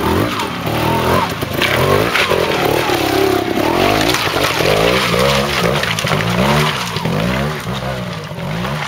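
Trials motorcycle engine revving up and down in quick throttle blips as the bike climbs over rocks, passing close by.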